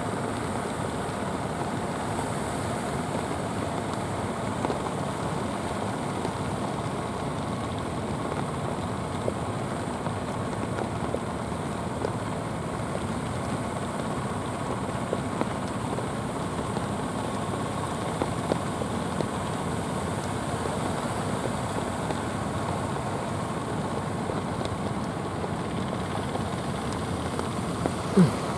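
Fishing-boat engines running steadily under a constant wash of rough surf. A short, sharp sound stands out just before the end.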